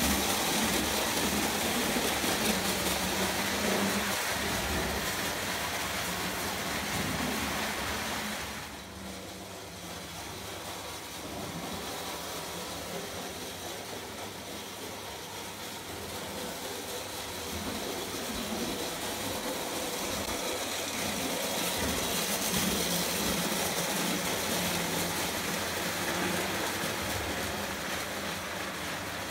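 Prewar Lionel O gauge electric locomotive and tinplate freight cars running on three-rail track, a steady rumble and clatter of wheels and motor. It drops away about nine seconds in, then builds again as the train comes closer.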